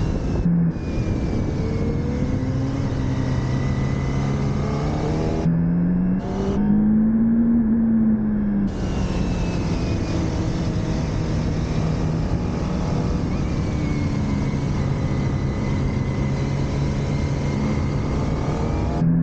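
Motorcycle engine accelerating and easing off, its pitch rising and falling over and over as it is ridden round a track.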